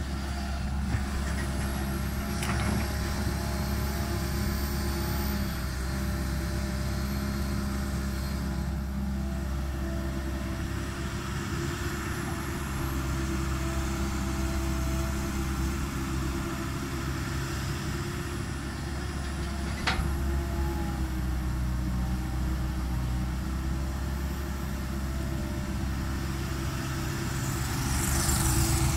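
Tracked excavator's diesel engine running steadily as it digs, with a faint high whine that shifts in pitch. A sharp knock comes about twenty seconds in, and the engine grows louder near the end.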